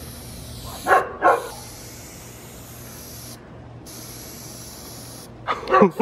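Aerosol can of Plasti Dip rubber coating spraying with a steady hiss, stopping and starting in short passes, including a pause a little after the middle. A dog barks twice, sharply, about a second in, and there are more short calls near the end.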